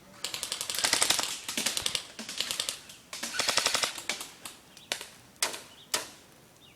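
Airsoft electric gun firing on full auto: three bursts of fast, even clicking shots, the first the longest at nearly two seconds, followed by three single sharp cracks about half a second apart.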